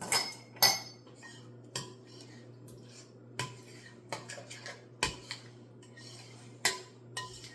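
Kitchen utensils and dishes clinking and knocking as they are handled and set down: about a dozen separate sharp clinks, several with a brief ringing tone, over a steady low hum.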